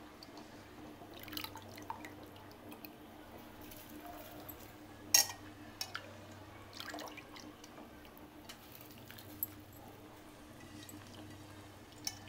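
Pot of water with basmati rice cooking on the stove: scattered small plops and ticks from bubbles as the water comes back to the boil, the sharpest about five seconds in, over a low steady hum.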